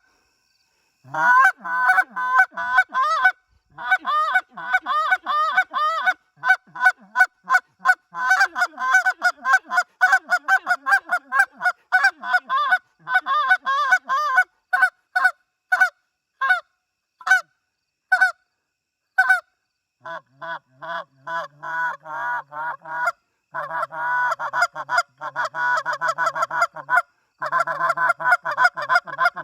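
Black Delrin goose call blown by hand, running fast strings of short honks and clucks. Around the middle the notes thin out to single spaced honks, then quick cluck runs come back with a deeper tone underneath for the last third.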